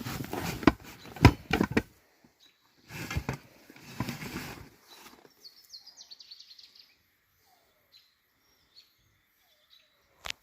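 Two bursts of rustling, knocking noise with sharp clicks, the first the loudest, then a small bird's quick run of high chirps about halfway through, with a few faint chirps after.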